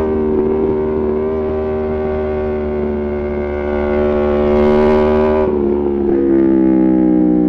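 Aprilia Tuono V4 Factory's V4 engine through an Arrow GP2 exhaust with the dB killer removed, held high in the revs on track with its pitch slowly rising. About five and a half seconds in the note breaks briefly with a ragged crackle and steps down in pitch, then keeps sinking.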